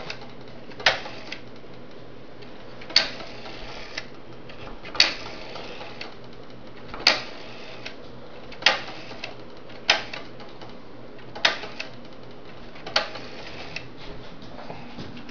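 Automatic Electric three-slot pay phone being dialed, handset off the hook: a sharp mechanical click for each digit, about eight of them one to two seconds apart, each followed by a few fainter clicks.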